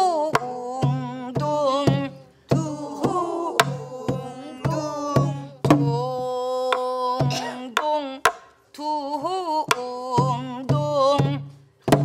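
A woman singing a pansori phrase in a wavering, heavily ornamented voice while beating the rhythm on a buk barrel drum with a stick: repeated deep drum strokes and sharp clicks of the stick under the held, shaking notes.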